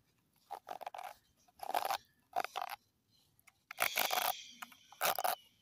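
A handful of short, close-up crunching and scratching sounds, made one after another as an ASMR trigger. The loudest comes about four seconds in and trails off briefly.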